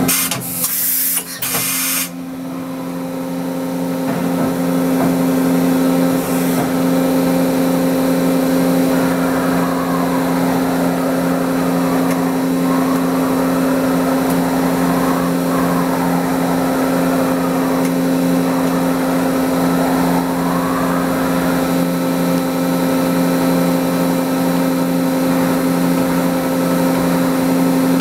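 Mazak Integrex 200-3ST CNC turning and milling center running with a steady machine hum. A hiss lasts about a second and a half near the start, and later a whine rises and falls several times as the machine works.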